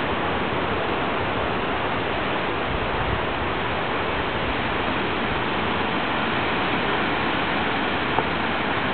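A steady, even rushing noise with no distinct events, and a single faint tick about eight seconds in.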